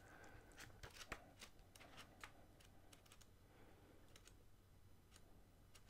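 Faint, soft ticks of paper pages being flipped through in a paperback manga volume, mostly in the first two seconds or so.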